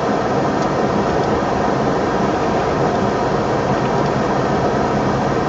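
Steady, even noise of a moving vehicle: road and engine noise with no distinct events.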